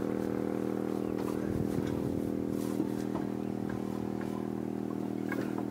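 An engine running steadily at an even pitch, with a few faint clicks over it.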